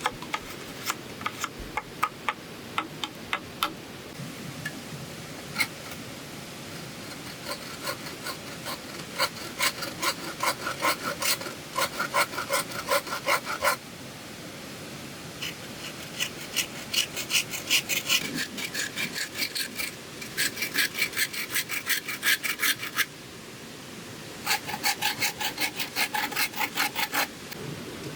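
A hand tool worked back and forth on bamboo: quick rasping strokes, about five a second, at first scattered, then in three long runs with short pauses between them.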